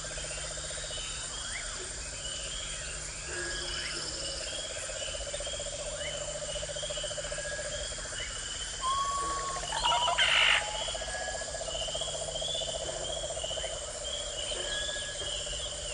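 Forest chorus of frogs and insects calling together: a steady pulsing trill, a high steady insect whine, and short chirps repeating over and over. A louder call stands out about ten seconds in.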